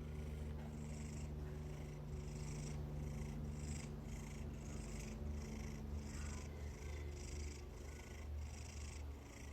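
Domestic cat purring steadily and softly, the purr pulsing about twice a second with its breaths.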